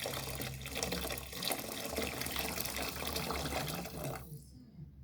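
Hot water being poured into a pot of washed rice to cook it, a steady pouring splash that stops abruptly about four seconds in.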